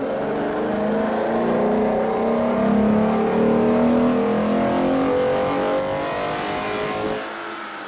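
Ford Mustang's 3.7-litre V6, fitted with a BBK performance throttle body, at full throttle on a chassis dyno, its note rising steadily as the revs climb. Near the end the throttle closes and the sound drops off as the engine winds down.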